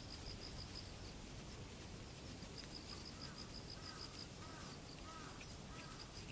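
Faint animal calls: a high, rapidly pulsed trill, about six pulses a second, that comes in bursts of about a second and a half, and from about three seconds in a few lower, arching chirps.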